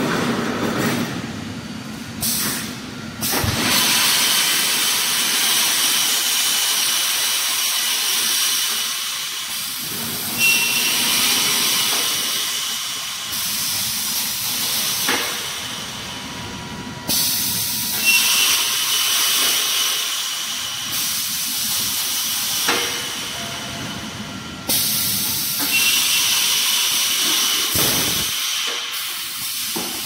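Rebar mesh welding production line running, with a loud hiss that starts abruptly about every seven seconds and fades over several seconds, and a few sharp clanks in between.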